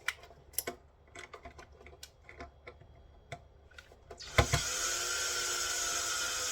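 Light clicks and taps of small metal parts being handled, then about two-thirds of the way in a cordless battery power tool, a drill-driver, starts and runs steadily with a motor whine, undoing fasteners on the inverter; its battery is running low.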